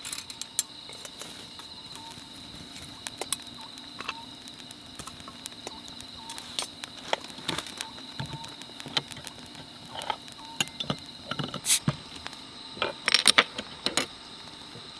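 Crickets chirring steadily on one high tone, with irregular small clicks and light knocks over it, a cluster of sharper clicks around two-thirds of the way in.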